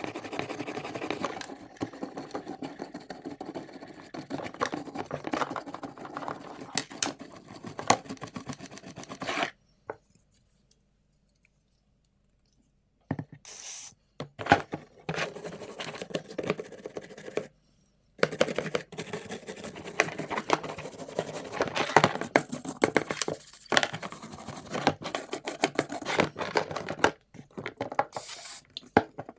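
Rough scraping and scratching, as of hand work on a hard part. It runs in long noisy stretches full of small clicks, with a few seconds of dead silence about ten seconds in and brief breaks later.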